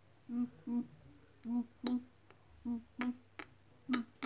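A person's voice humming a doubled "boom-boom" heartbeat, four pairs about a second apart, imitating a heartbeat heard through a stethoscope during a pretend examination. A few light clicks sound between the beats.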